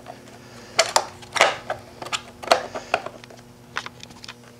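Irregular light clicks and knocks, about a dozen, from hand and camera handling around the e-bike's controller compartment, over a faint steady low hum.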